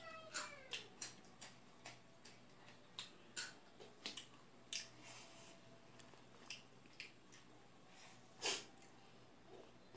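Crisp panipuri shells being crunched and chewed close to the microphone: irregular sharp crackles a few times a second, the loudest a longer crunch about eight and a half seconds in.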